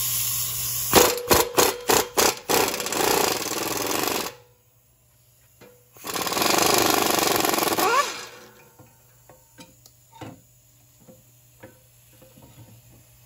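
Air impact wrench hammering on a bolt in two bursts: the first about four seconds long, with hard separate blows in its first couple of seconds, and a second about two seconds long starting about six seconds in, ending in a short rising whine. A few faint taps follow.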